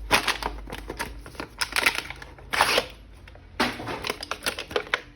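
Hands handling and unwrapping an action figure from its plastic packaging: irregular crinkling and sharp clicks.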